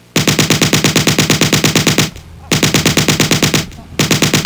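Machine-gun fire sound effect: three bursts of rapid shots, about ten a second, the first lasting about two seconds and the next two shorter, with brief pauses between them.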